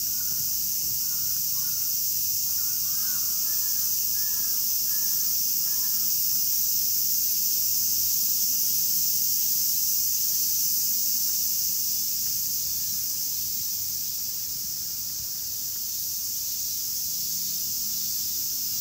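A crow cawing repeatedly during the first six seconds, over a steady, high-pitched drone of insects.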